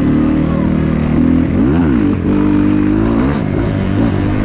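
Trail motorcycle engine running, revved up and back down once about halfway through.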